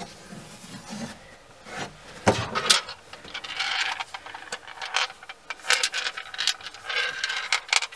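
A cloth damp with acetone rubbing in strokes over fiberglass and a plastic inspection-port ring, cleaning the surfaces before sealant goes on. A few knocks and clicks of the plastic ring being handled, the loudest about two seconds in.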